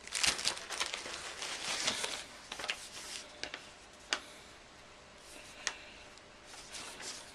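Packaging being handled during an unboxing: rustling and crinkling of packing material in bursts over the first few seconds, then a few sharp clicks and taps and lighter rustling.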